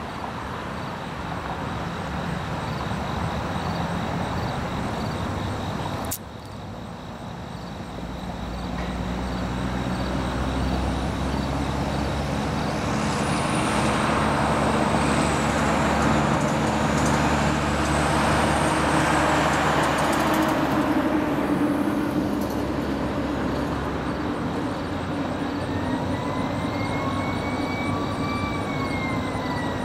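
Busy road traffic, with a heavy diesel truck's engine running close by and loudest through the middle. A sharp click comes about six seconds in, a high whine glides up and down in the middle, and a tone rises and then falls near the end.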